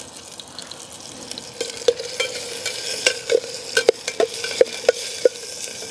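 Raw sausages sizzling in hot olive oil in a stainless steel Zebra billy pot over a wood fire, the sizzle growing louder. From about a second and a half in, the pot is stirred and handled, giving a dozen or so sharp metal clinks, each with a short ring at one pitch.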